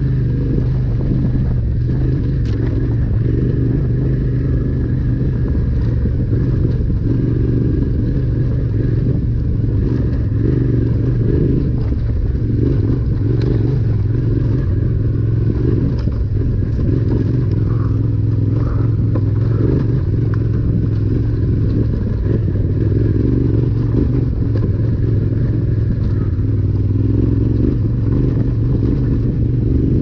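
Yamaha Ténéré 700's parallel-twin engine running steadily through a Yoshimura RS-12 slip-on exhaust while riding, with the tyres clattering over loose gravel and rocks.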